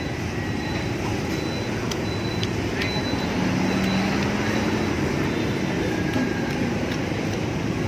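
Steady street traffic noise, with the hum of a passing engine for a second or two near the middle.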